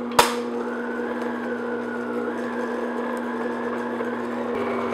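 Stand mixer motor running steadily at medium-low speed, its flat beater turning through wet cake batter in a glass bowl, with a steady hum and a higher whine that rises slightly about two seconds in. A sharp click sounds just after the start.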